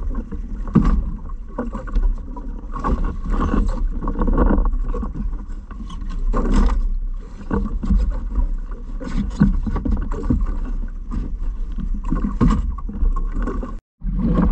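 Water sloshing and splashing around a small fishing boat, with a constant deep wind rumble on the microphone; the sound drops out for a moment just before the end.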